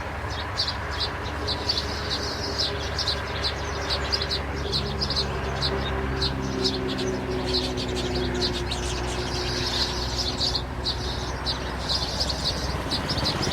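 Birds chirping: short, high-pitched chirps repeating about four times a second, over a low steady drone.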